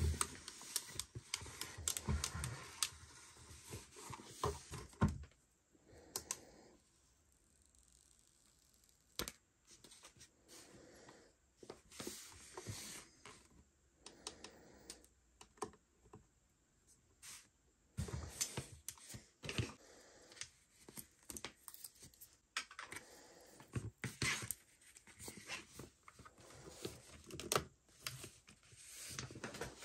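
Hands handling a small plastic Miko Mini robot: scattered light clicks and knocks of the plastic shell and buttons, with some rustling. A quieter stretch comes about six seconds in.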